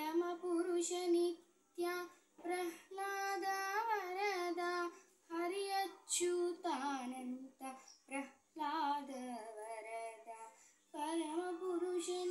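A girl singing solo without accompaniment, in short phrases with held notes that waver in pitch, separated by brief pauses.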